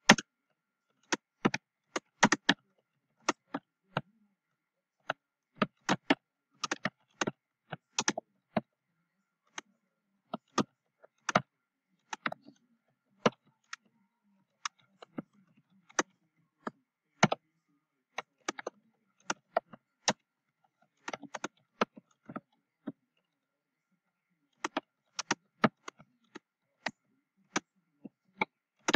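Computer keyboard being typed on: irregular keystroke clicks in quick runs, with short pauses between them.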